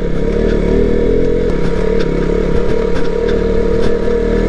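KTM RC200's single-cylinder engine running at a steady pitch under way, with scattered knocks and clatter from the bike riding over a rough track.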